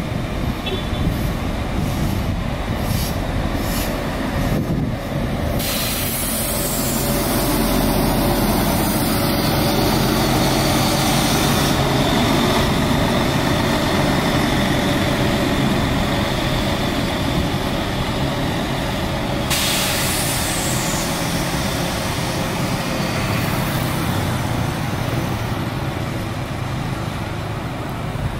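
Coach's diesel engine running as the bus rolls slowly past and away, growing louder in the middle. A sudden hiss of air comes about five seconds in and again about twenty seconds in.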